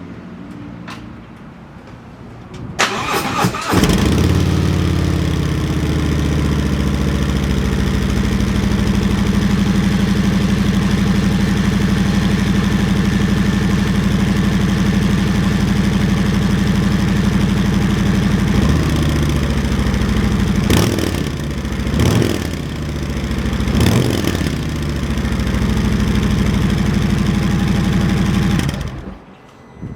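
2019 Harley-Davidson Street Glide Special's Milwaukee-Eight V-twin on its stock exhaust, started cold and idling steadily. It is revved briefly several times in the second half, then shut off about a second before the end.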